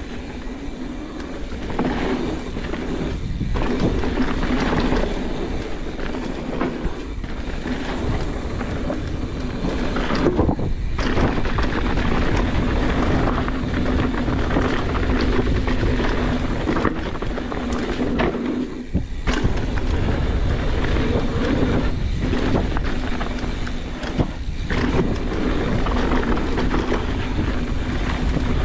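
Mountain bike riding fast down a dirt trail: continuous tyre noise and the bike rattling over bumps, under a steady hum, with wind on the microphone.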